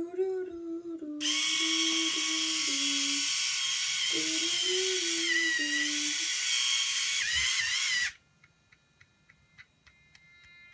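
Electric shaver buzzing for about seven seconds: it switches on about a second in, its whine wavers near the end, and it cuts off suddenly. A person hums a tune over the first part.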